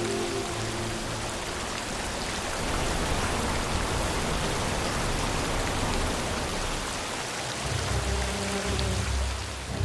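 Heavy rain falling as a dense, steady hiss, with background music coming back in low near the end.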